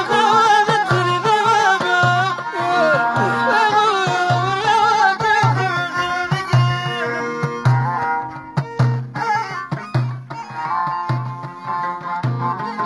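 Middle Atlas Amazigh folk music: a man's ornamented, wavering singing over a violin, a lotar lute and a frame drum beating a steady pulse. About halfway through the singing stops and the violin and lute carry on over the drum.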